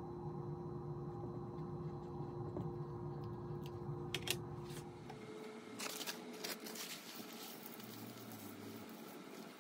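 A steady low hum, then, after a sudden change a little past halfway, a plastic bag crinkling and dry rabbit skin glue granules pattering into the pan of a small kitchen scale.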